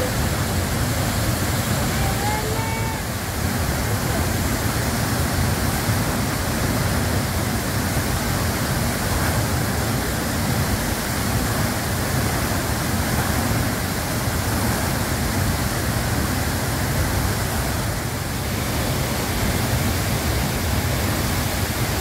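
Steady, unbroken rush of water from the 70-metre La Fortuna waterfall plunging into its pool.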